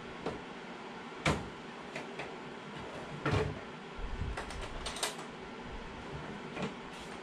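Hand tools clinking and knocking as they are handled: a handful of separate sharp metal clicks a second or so apart, the loudest about a second in and just after three seconds, with a brief low bump around four seconds.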